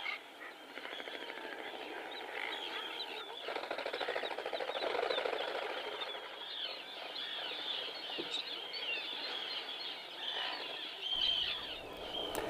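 Seabird colony of common and Arctic terns: many short, overlapping calls from a large crowd of birds, with a lower, buzzier sound swelling between about four and six seconds in.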